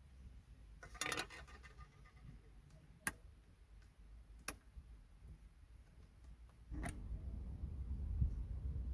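Small sharp plastic clicks and a short rattle from handling a car's interior dome-lamp cover and bulb: a cluster about a second in, then two single clicks. A low rumble comes in near the end.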